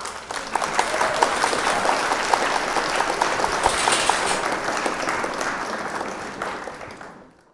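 Dense audience applause that starts suddenly and fades out near the end.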